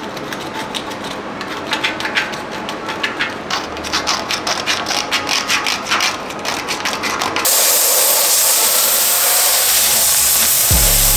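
A hand wire brush scrubbing a weld on a steel frame in quick, uneven rasping strokes. About seven seconds in, a louder steady hiss takes over, and background music comes in near the end.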